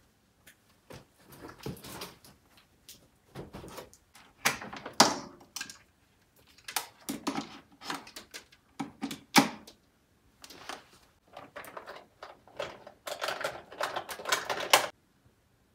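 Everyday household handling noises: an irregular run of clicks, knocks and rustles as objects are picked up, set down and moved. It is densest near the end, then stops.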